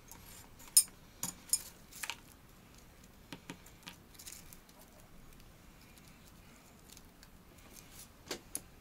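Scattered sharp metallic clicks and taps of bonsai tools being handled: several in the first two seconds, a pair a little later and two more near the end.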